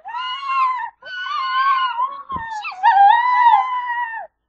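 A girl making cat-like meowing wails with her voice: three long, high-pitched calls.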